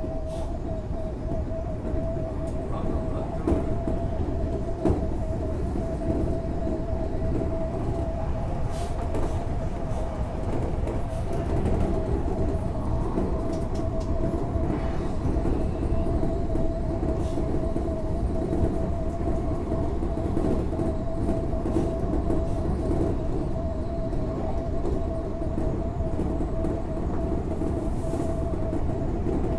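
Odakyu 8000 series electric commuter train running along the line, heard from inside the front car: a steady rumble of wheels on rail with one constant tone over it and a few scattered clicks from rail joints.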